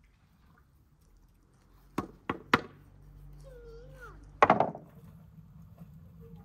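Hard wooden knocks from the tamping pole and boards being handled: three quick knocks about two seconds in, then a louder clatter of knocks about four and a half seconds in.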